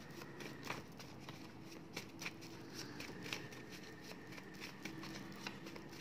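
A small deck of word cards being shuffled by hand: faint, irregular soft ticks and slides of the cards against each other.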